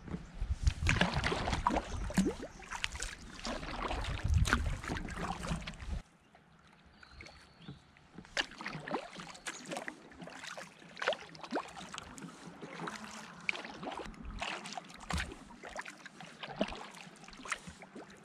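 Kayak paddling: paddle blades dipping and water splashing and dripping in irregular strokes. A low rumble under the first six seconds cuts off suddenly, and the strokes carry on more quietly.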